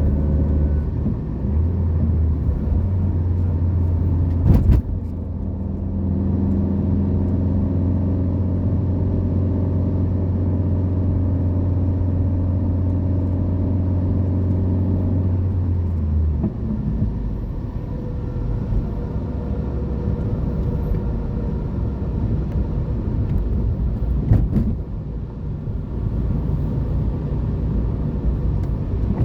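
Car engine running with a steady low hum that drops away about halfway through, leaving a rumble of road noise. Two short knocks come through, one early and one late.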